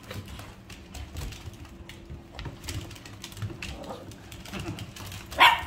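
Small dogs' claws clicking and tapping on a hardwood floor as they jump and scramble about, with a loud bark near the end.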